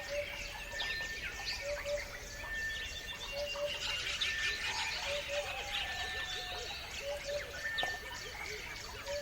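Many wild birds chirping and singing at once, a dense chorus of quick high chirps and trills. Through it, one bird repeats a short steady whistle and another a low double note, each every second or two.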